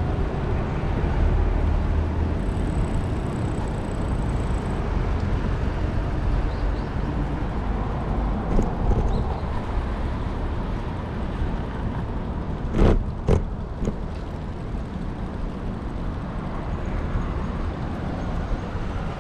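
Busy street ambience dominated by a steady low traffic rumble, with two sharp clacks about two-thirds of the way through.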